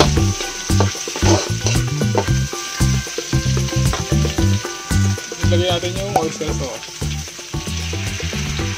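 Meat strips and onion sizzling in hot oil in an aluminium wok, stirred and scraped with a metal slotted spatula, with repeated metal-on-metal scrapes over a steady sizzle.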